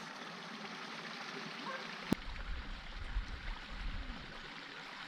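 Stream water flowing steadily over rocks. A sharp click comes about two seconds in, followed by a low rumble for a couple of seconds.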